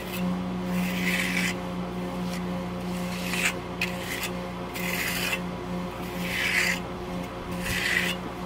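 Steel finish trowel rasping across fresh concrete that has lost most of its bleed water, with one sweeping stroke about every second and a half. A steady low hum runs underneath.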